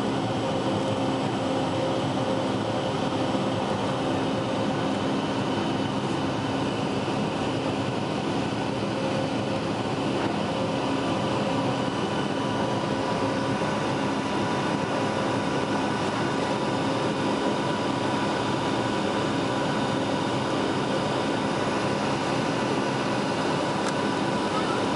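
Cabin noise of a Boeing 757-200 at climb power, heard from a window seat beside the wing: a steady rush with several constant engine tones over it from its Rolls-Royce RB211 turbofans.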